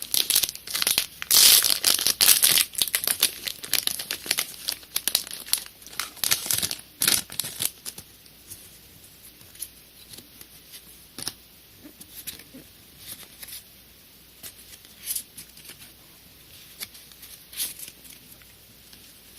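Foil wrapper of a Pokémon booster pack crinkling and rustling for about the first eight seconds, then fainter scattered clicks and rustles as the cards are handled.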